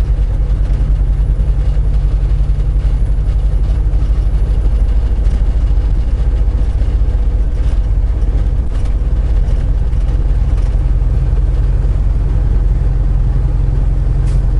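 Semi truck's diesel engine and road noise, heard from inside the cab while cruising down the highway: a steady low drone.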